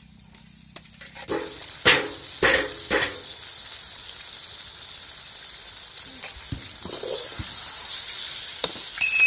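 Pieces of steamed egg hit the hot oil in a steel kadai: a loud sizzle starts about a second in, with a few metal clanks against the pan, then the frying sizzles steadily while a steel spoon stirs.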